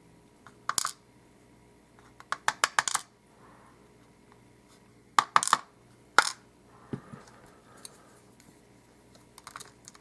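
Small metal lock parts (pins from an Abus Titalium euro cylinder) clicking and clattering on a hard surface in several short bursts of sharp, ringing clicks.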